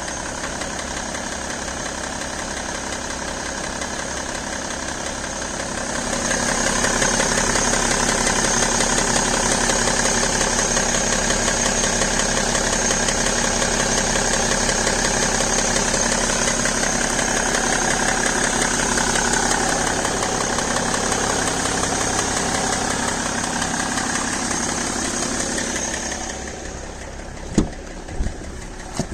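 BMW E60 525d diesel engine idling with a tick/click, a noise the owner hears only while the engine is cold and that goes away once it reaches about 80 °C. The running sound gets louder about six seconds in and drops back near the end, where a few sharp knocks follow.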